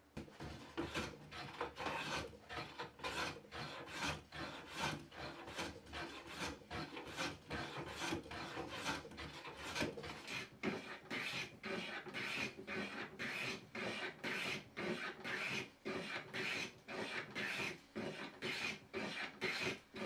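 Hand plane shaving wood in quick short strokes, about two a second.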